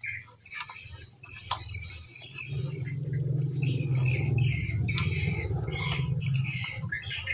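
A dog eating rice from a metal pan, with short wet clicks of chewing and lapping. Birds chirp repeatedly in the background, and a low steady hum comes in about two and a half seconds in.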